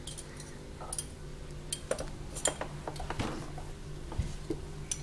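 Small toy kitchen items clicking and clattering as they are handled inside a toy oven, a scatter of separate knocks with a busier cluster around the middle.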